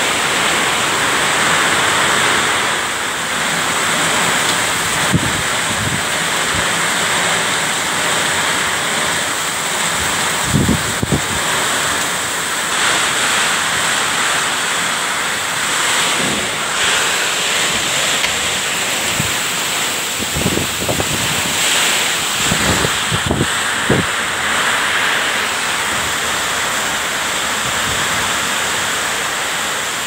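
Heavy rain driven by strong, gusting wind: a loud, steady rushing noise. A few short thumps break through it here and there, most of them in the second half.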